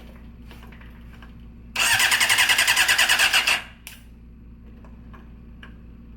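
The 2008 Honda CBR600RR's inline-four engine is being cranked by its starter motor, with the starter terminals jumped. It turns over for about two seconds with a fast, even chugging and does not fire, because the fuel pump is not priming. A single click follows just after it stops.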